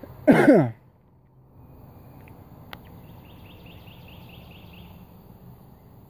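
A person's loud sneeze close to the microphone, about half a second long, with its pitch falling. Afterwards comes faint rapid chirping, about four or five pulses a second.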